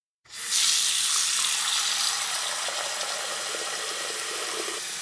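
A steady rushing hiss, like running water, that fades in over a moment about a quarter of a second in and holds.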